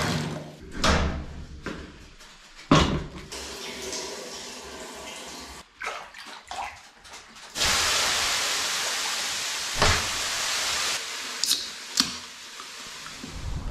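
Water running from a tap into a sauna bucket, then a few knocks of the bucket and ladle, then a loud hiss lasting about three seconds that slowly eases, as water ladled onto hot sauna stones turns to steam. Two sharp clicks near the end.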